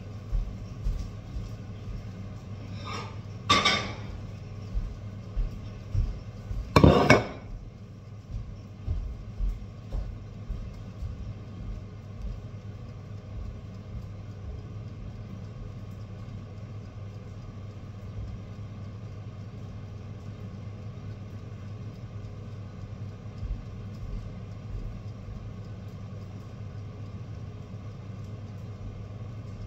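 Kitchen clatter of pans and utensils: a few knocks, the loudest about 3.5 and 7 seconds in, with smaller ones up to about 10 seconds, over a steady low hum.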